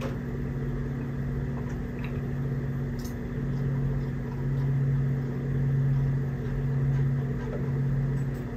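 Steady low mechanical hum that swells and fades slowly and regularly, with a couple of faint clicks of small wooden planks being set down.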